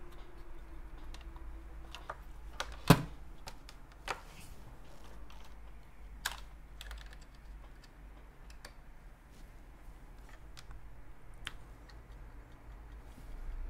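Scattered light clicks and taps, with one sharper click about three seconds in, over a faint steady hum.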